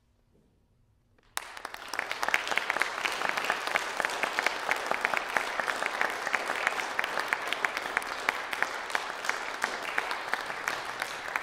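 Concert audience applauding, breaking out suddenly out of near silence about a second and a half in, then continuing as steady dense clapping.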